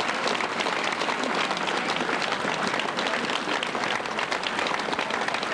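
Spectators applauding: a steady patter of many hands clapping at once.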